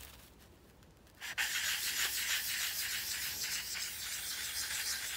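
Steel knife edge rubbed over wet-and-dry sandpaper on a sharpening block, a steady run of quick scratchy sanding strokes that starts about a second in and stops suddenly at the end.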